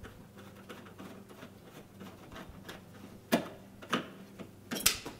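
Phillips screwdriver backing a screw out of a sheet-metal mounting bracket: a run of faint ticks, then three sharper clicks in the last two seconds as the screw comes free and the bracket is handled.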